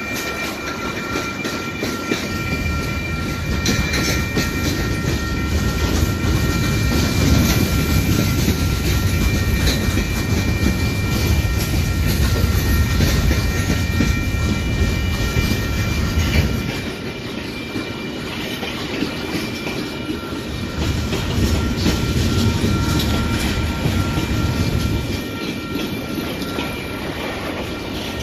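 Freight train cars, covered hoppers and tank cars, rolling past at a grade crossing: wheels clacking over the rail joints over a low rumble that eases a little after about sixteen seconds. A few steady high tones sound over it.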